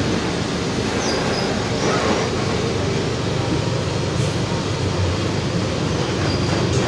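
Rear differential of a Mercedes-Benz OF-1721 bus drivetrain, running with a very loud, steady drone (roncando muito alto) over the road and engine noise as the bus is under way.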